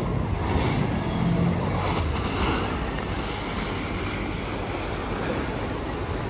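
Water churning in the wake of a passing outboard-powered pontoon boat, with wind buffeting the microphone: a steady rushing noise with a low rumble and no distinct engine note.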